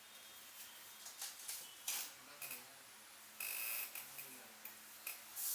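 Hands rubbing and tapping over a person's hair and scalp in a head massage: a scatter of short, irregular rubbing and patting sounds, with one longer rub about three and a half seconds in.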